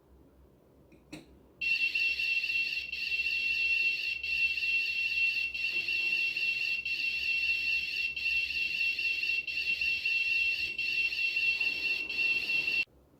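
Arduino piezo buzzer sounding a steady high-pitched alarm tone, the smoke detector's warning that its MQ2 sensor has picked up smoke. It starts just after a faint click about a second and a half in, dips briefly about every second and a quarter, and cuts off suddenly near the end.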